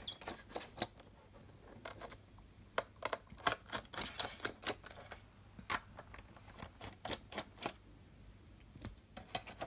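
Small screwdriver backing screws out of a MacBook Pro's aluminium bottom cover: a run of irregular small metallic clicks and ticks.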